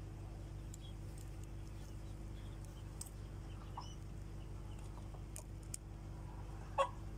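Chickens clucking faintly over a steady low hum, with one short, louder call near the end. Scattered faint clicks come from eggshell being picked off a hatching chick by hand.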